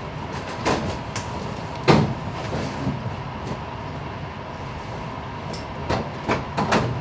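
Steady classroom room noise with a faint constant hum, broken by a few short knocks and thumps: one under a second in, the loudest about two seconds in, and several close together near the end.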